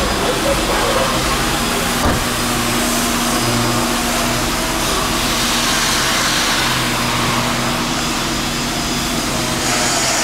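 Steady engine running noise, with low held tones that come and go.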